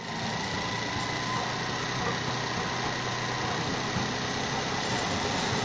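Tram crossing an intersection: a steady rolling hiss and rumble with a faint high whine.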